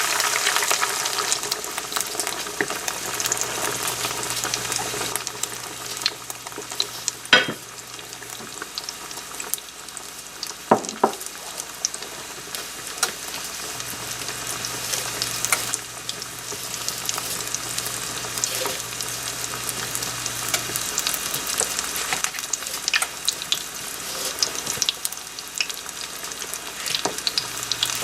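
Breaded chicken breast frying in hot oil in a skillet: a steady sizzle full of small crackling pops. It is loudest right after the piece goes in and eases off over the first several seconds. A few sharp clicks come about seven and eleven seconds in.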